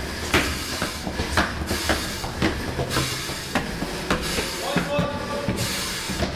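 A firefighter's heavy boots striking stone stairs at a hurried pace, about two steps a second.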